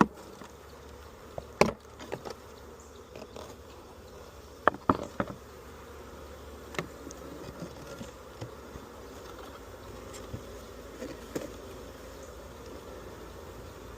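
Honeybees buzzing steadily around an open Langstroth hive, with several sharp knocks and clicks, the loudest in the first five seconds.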